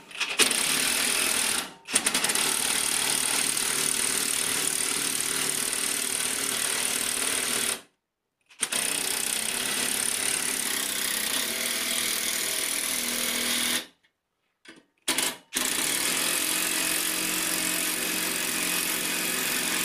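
Cordless DeWalt impact driver hammering large hex-head bolts through a TV bracket's wall plate into wall fixings. It runs in several long stretches with short pauses between them.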